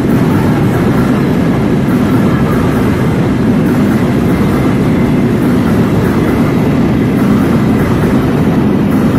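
Bogie oil tank wagons of a freight train rolling past close at speed: a loud, steady rumble of steel wheels on the rails.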